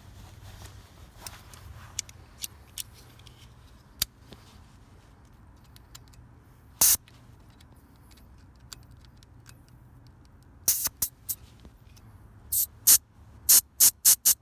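Refrigerant (R453A) hissing in short spurts from a heat pump's Schrader service valve as the freshly installed valve core is pressed open with a small tool. There is one spurt about seven seconds in, then a quick run of about ten short spurts near the end, with a few light clicks before them.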